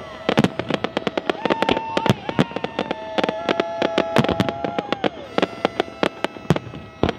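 Fireworks display going off in rapid, irregular succession: many sharp bangs and crackles. A steady pitched tone holds over them from about a second in until around five seconds, stepping up and down in pitch a couple of times.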